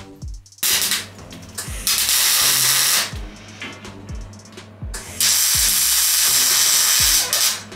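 Electric arc welding on the steel crane frame: the arc crackles and hisses in three bursts, a short one about half a second in, a longer one around two seconds, and the longest from about five seconds to near the end. Background music with a steady beat runs underneath.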